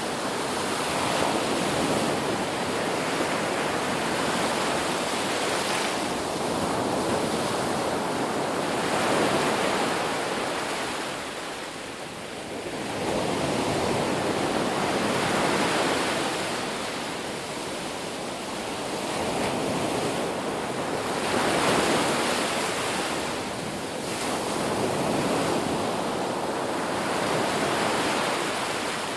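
Sea waves breaking and washing ashore, the surf swelling and fading about every five or six seconds.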